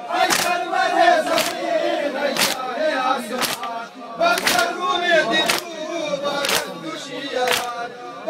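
A crowd of men doing matam, striking their bare chests in unison about once a second, eight sharp slaps in all, while they chant a mourning lament together.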